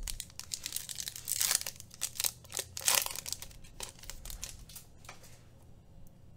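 Foil wrapper of a Topps Finest soccer card pack being torn open and crinkled by hand. It makes a run of crackles, loudest about one and a half and three seconds in, dying away after about five seconds.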